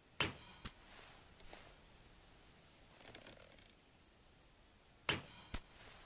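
Longbow shot twice, about five seconds apart: each time a sharp release of the string, followed about half a second later by a shorter knock.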